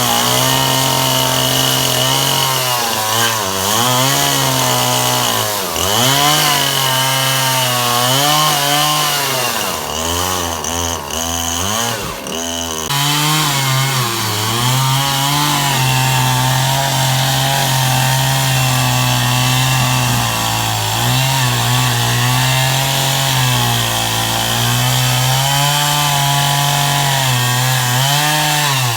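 Sears Craftsman chainsaw cutting wood. The engine note sags each time the chain bites into the wood and picks back up between cuts, with quick, unsteady speed changes around the middle.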